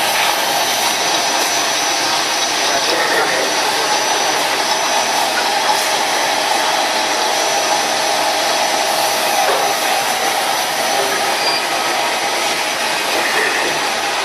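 Electric motor of an SL 2011A binding-tape cutting machine running steadily, a continuous whirring with a faint constant whine.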